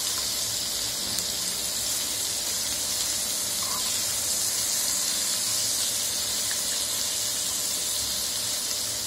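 Masala-coated fish sizzling steadily in shallow oil on a hot non-stick tava, the pieces being turned over to fry their second side.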